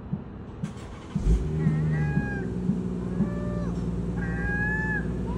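Gulls giving a string of mewing calls, each bending down in pitch at the end, over the steady low hum of a vehicle engine that starts about a second in with a thump.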